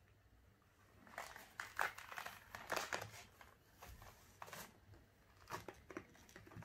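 Faint, irregular crinkling of a die-cast toy car's plastic blister pack and card backing as it is handled, in several short rustles.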